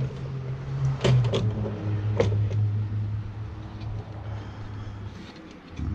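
Sharp plastic clicks and knocks from the opened housing of a car vacuum cleaner being handled, four or so in the first two and a half seconds, over a steady low hum that fades near the end.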